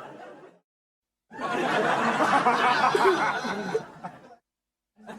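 Canned studio-audience laughter from a TV laugh track, in separate clips with dead silence between them. One clip fades out at the start, a fresh burst of laughter runs about three seconds in the middle and fades away, and the next starts right at the end.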